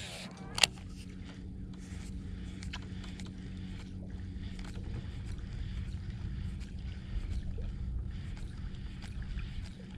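A single sharp click about half a second in, then a steady low rumble with faint scattered ticks as a baitcasting reel is cranked to retrieve a cast lure from a kayak.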